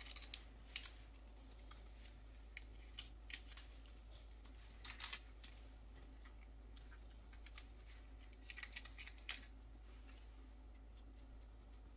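Faint scattered clicks and crackles of Maggi seasoning being crumbled between fingers and sprinkled into a pot, over a low steady hum.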